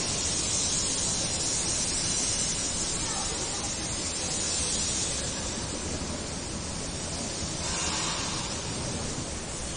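Steady hiss of background noise, brightest in the high range, with a brief faint sound about eight seconds in.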